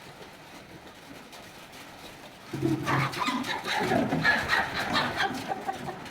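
Chickens clucking. From about two and a half seconds in there is a busy, louder stretch of short clicks and scrapes mixed with short calls.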